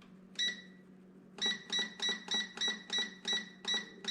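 GoWise USA air fryer's control panel beeping as its buttons are pressed to set it for another 7 minutes at 380: a single beep, then a quick run of about nine beeps, roughly three a second, over a low steady hum.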